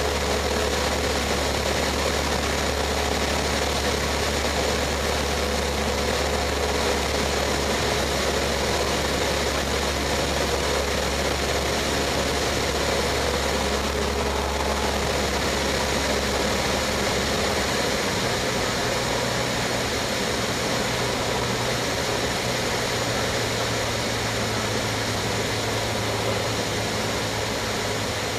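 Cessna 152's four-cylinder Lycoming O-235 engine and two-blade propeller droning steadily in flight, heard from inside the cockpit. The deep low hum shifts to a slightly higher note about two-thirds of the way through.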